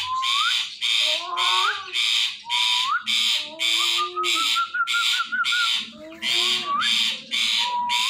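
Indian ringneck parrot screeching over and over, about two harsh calls a second, with short rising whistles between them and a warbling trill midway.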